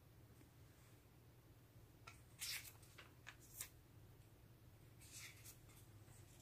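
Faint rustles and flicks of thin Tomoe River paper as pages of a Hobonichi A6 planner are turned by hand: a cluster about two to four seconds in and another about five seconds in, over quiet room tone.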